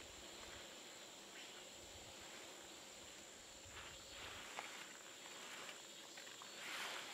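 Quiet outdoor ambience: a steady high-pitched insect drone over a soft hiss, with a few faint ticks and a brief swell of rustling near the end.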